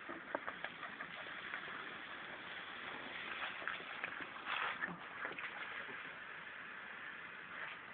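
Garden hose spray nozzle hissing steadily, with water spattering on the ground and a few short knocks and clicks.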